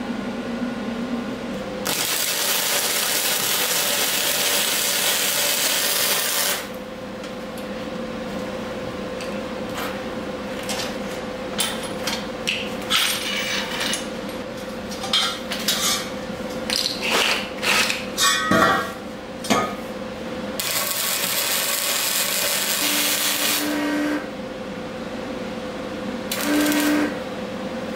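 MIG welder arc crackling and sizzling as square steel tubing is welded. There is a steady bead of about four seconds, then stop-start short bursts and clicks, and another bead of about three seconds near the end.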